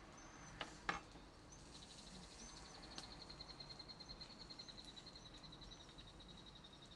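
Faint outdoor ambience: a high, rapidly pulsing trill begins about two seconds in and keeps going, with a few short high chirps. Two sharp clicks come about a second in, and a fainter one a little later.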